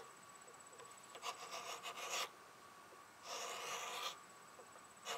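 Hand scraper drawn along the grooves of a wooden table leg, scraping out old finish and debris in two scratchy strokes, each about a second long.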